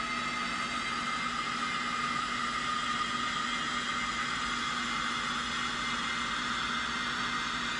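Steady hissing, whirring static-like noise with a low steady hum underneath.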